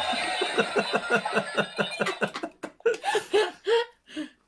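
A person laughing: a run of short "ha" pulses, about four or five a second, breaking into separate bursts in the second half, with a steady high tone underneath for the first two seconds.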